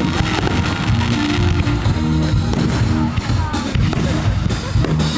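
Music with a deep bass line that steps between held low notes.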